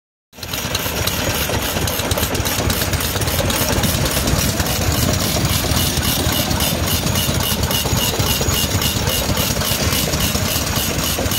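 Antique stationary gas engine with heavy flywheels running at a steady, even beat, belt-driving a small blower fan.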